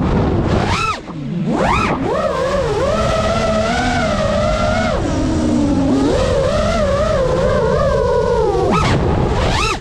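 FPV quadcopter's motors whining, recorded on the drone's onboard GoPro, the pitch swooping up and down with the throttle: a sharp dip and climb about a second in and again near the end, a steadier cruise between. Under it runs a low rumble of wind and prop wash.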